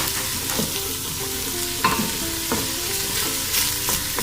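Chopped onion with garlic and ginger sizzling as it fries in olive oil in a pot, with a spoon stirring and scraping the pan about once a second.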